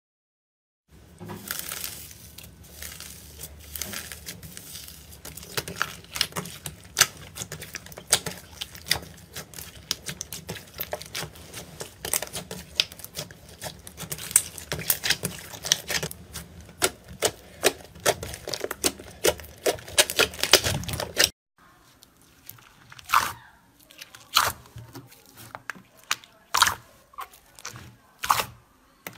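Hands kneading and stretching thick slime, with dense crackling and popping of trapped air. About 21 seconds in, the sound changes to a few separate pops and squelches as glossy slime in a tray is pressed.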